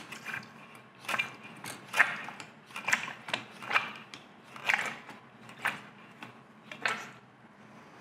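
Alemite lever-action oil gun being pumped by hand, a short mechanical clack with each lever stroke, about one a second, eight strokes in all. The gun is forcing Vactra No. 2 way oil through the lathe compound's Zerk fitting to flush out old grease.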